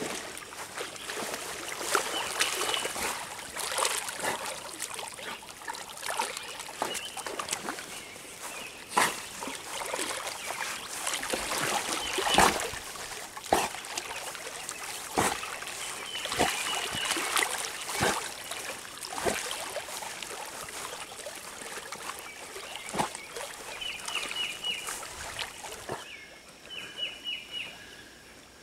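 A dog splashing into a pond and swimming, with water sloshing and sharp splashes throughout. It gets quieter near the end as the dog swims away.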